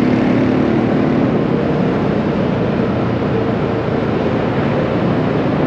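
Steady city traffic noise with wind rushing over the microphone, heard while moving along a busy street; an engine hum stands out briefly near the start.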